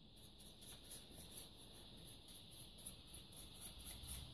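Bristle paintbrush scrubbing the plastic housing of an Allen-Bradley ControlLogix PLC module, faint quick scratchy strokes about four or five a second.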